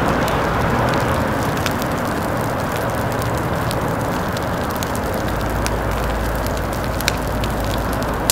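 Burning dry brush and grass crackling, with scattered sharp pops over a steady rumbling noise that gets deeper about five seconds in.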